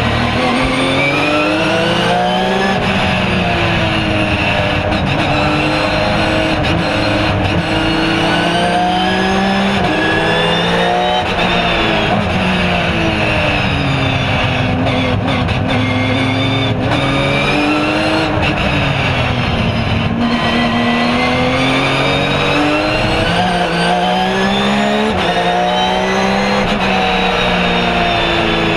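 Porsche 997 GT3 R's flat-six racing engine heard from inside the cockpit under race load: the revs climb through the gears, drop back under braking, and climb again several times, with brief breaks at the gear changes.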